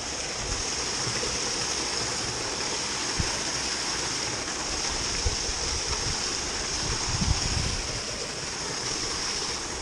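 Steady rush of water running at a canal lock, with a few soft low thumps about three seconds in and again near seven seconds.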